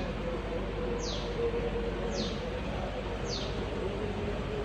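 A bird calling: a short, high chirp that falls in pitch, repeated about once a second, over a faint steady hum.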